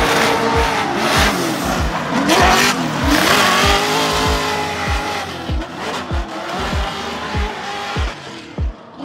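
Music with a deep, thudding bass beat, mixed over drift cars' engines revving and tyres squealing.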